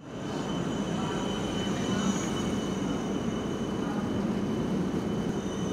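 Electric tram running past on street track: a steady rolling rumble with a thin, steady high whine over it, fading in at the start.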